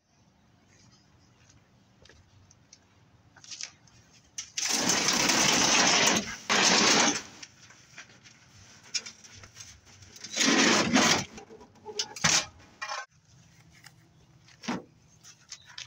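Plastic cabinet of a heavy CRT television scraping and grinding on concrete as it is tipped and turned over, in two long rough bursts, followed by a few short scrapes and knocks.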